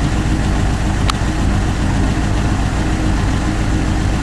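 GAZelle van's engine running steadily, heard from inside the cab as a low even hum. A single sharp click about a second in.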